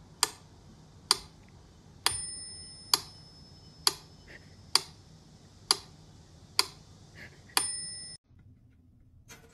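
Sharp ticks at a steady pace of a little more than one a second, two of them carrying a short bell-like ring. The sound cuts off abruptly about a second before the end.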